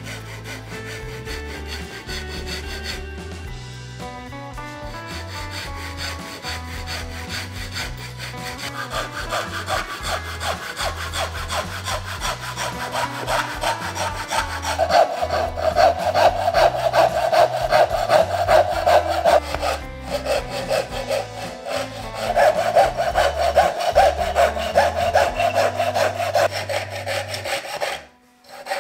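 Japanese hand saw cutting into a laminated plywood block with quick back-and-forth strokes. The rasping grows louder about a third of the way in and stops shortly before the end.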